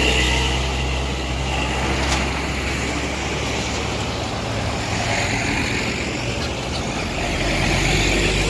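Heavy road traffic: a large vehicle's engine rumbling steadily under tyre and road noise, growing a little louder near the end.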